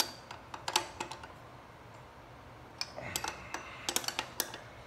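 A 14 mm steel wrench clicking and clinking on a nut as a brake bracket bolt is tightened. The clicks come in two short bursts, one in the first second and one from about three seconds in.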